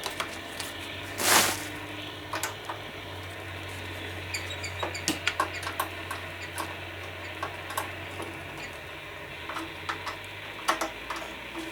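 Realistic TRC-57 SSB CB base station receiving: steady static hiss from its speaker over a low hum, broken by scattered clicks and crackles and a louder burst of noise about a second in.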